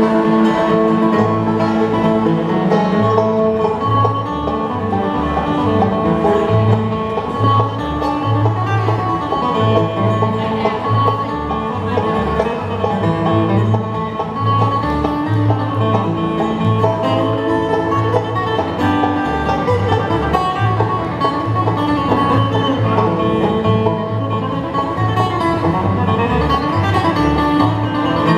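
Bluegrass band playing live, an instrumental stretch with banjo and guitar picking over a bass line that steps back and forth between two low notes.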